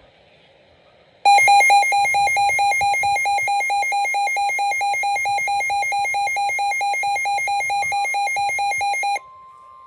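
Weather radio receiver's alert alarm going off for an incoming tornado warning: a loud, rapidly pulsing electronic beep, about five pulses a second. It starts about a second in and runs for about eight seconds, then cuts off abruptly and gives way to a faint steady tone.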